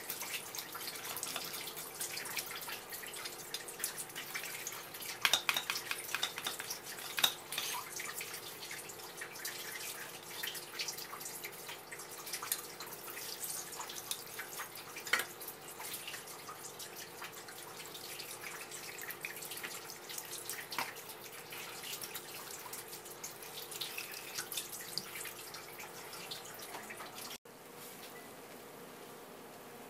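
Tap water running in a stream and splashing onto a wooden cutting board while a salted fish head piece is rinsed and scraped with a small blade, with many small splashes and clicks. Near the end it cuts abruptly to a quieter, steady hiss.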